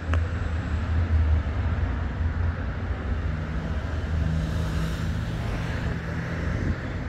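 Motor vehicle noise: a low engine hum with road noise, joined by a steadier engine tone from a little under halfway through.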